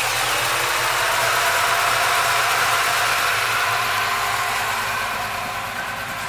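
The 355 cubic-inch V8 crate engine of a 1969 GMC 1500 pickup, idling just after being started. It runs steadily and gradually gets quieter toward the end.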